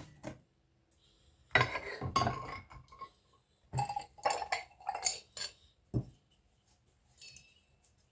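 Dishes and cutlery clinking and clattering in several short bursts, with quiet gaps between them.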